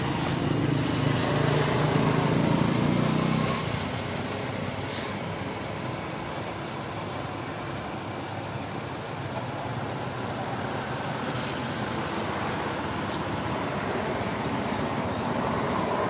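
Background road traffic: a steady rumble and hiss, with a louder low engine drone for about the first three and a half seconds.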